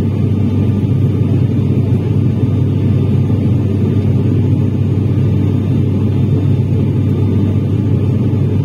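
Turboprop engines and propellers of a high-wing airliner in flight, heard inside the passenger cabin: a steady low drone with a deep, unchanging hum.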